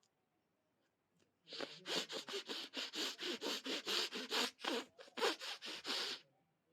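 A person sniffing hard through the nose in a rapid rhythmic series, about four sniffs a second. It starts about a second and a half in and stops about half a second before the end.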